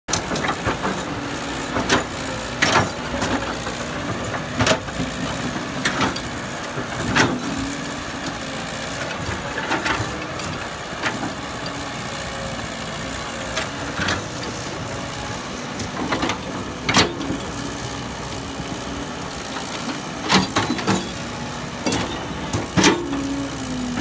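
Caterpillar E120B hydraulic excavator's diesel engine running steadily while it digs, with irregular sharp clanks and knocks from the bucket and arm. Near the end the engine note drops in pitch.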